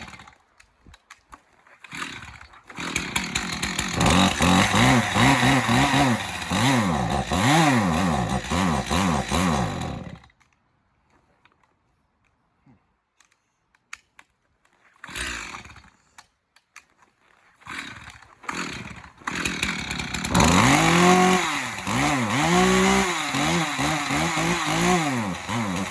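Two-stroke chainsaw pull-started. It catches and revs up and down for about seven seconds, then cuts out suddenly. After a few quiet seconds come more pulls, and it starts again and revs unevenly: a cold engine struggling to keep running in freezing weather, which the owner thinks just needs to warm up.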